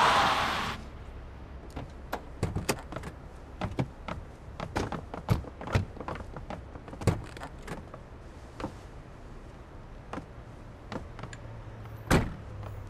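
A rushing noise cuts off less than a second in. Soft knocks and clicks then come at irregular intervals, with a louder knock near the end.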